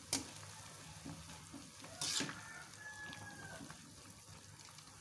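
Faint bubbling of banana-blossom strips boiling in a pot of water, being parboiled to soften them, with a metal skimmer stirring through them; a short, louder stirring noise about two seconds in.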